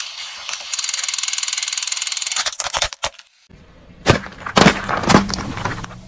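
First a fast, steady electronic rattle from a battery-operated crawling toy soldier. Then aluminium Sprite cans are crushed under a car tyre: three loud pops as they burst, with soda fizzing and spraying out between them.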